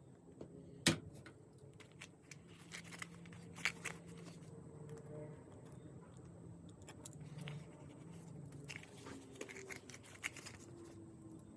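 Hand tool cutting a tough material in small snips and scrapes, with scattered clicks, the sharpest about a second in.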